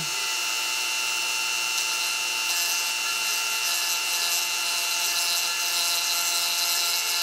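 Dremel rotary tool running steadily with a high-pitched whine, its pink grinding-stone bit lightly grinding the acrylic of a lower denture. A grinding hiss grows louder about two and a half seconds in as the stone bears on the denture.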